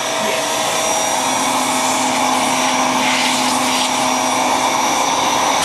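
Household vacuum cleaner running steadily: an even rushing noise with a constant motor whine on top.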